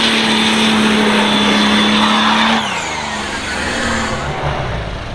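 Off-road 4x4 engine held at high revs under load, then the revs fall away suddenly about two and a half seconds in.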